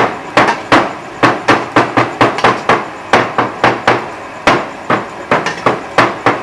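Wooden pestle pounding lemongrass stalks on a thick round wooden chopping block to crush them. A steady run of sharp wooden knocks, about three or four a second.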